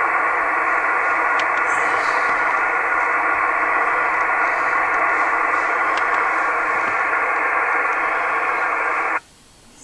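Yaesu FT-897 transceiver on 2-metre SSB putting out the steady hiss of an empty band, with no stations to copy. The hiss cuts off suddenly near the end.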